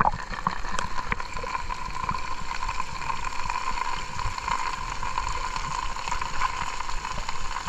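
Heavy rain pelting down on shallow water and mud, a dense steady hiss of drops.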